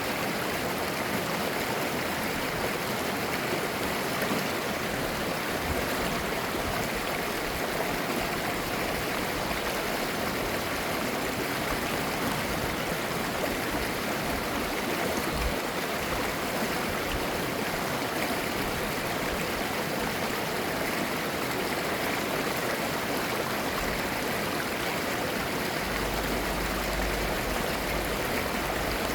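Clear mountain valley stream flowing steadily over rocks, babbling.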